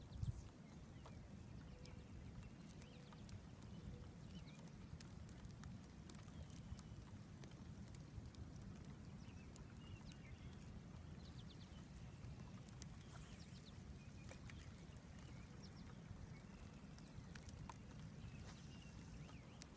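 Near silence: a low steady outdoor rumble with faint scattered ticks, and a single soft bump right at the start.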